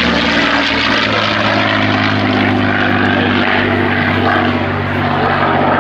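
P-51D Mustang's Packard Merlin V-12 engine and propeller droning steadily in a banking flypast, the pitch dropping slightly about a second in.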